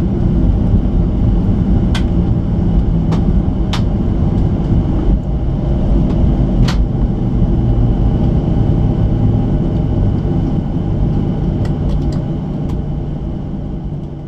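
Cabin sound of a Boeing 737-600 rolling on the ground after landing: a steady, loud rumble of engines and wheels, with a few sharp clicks and rattles from the cabin. It fades out near the end.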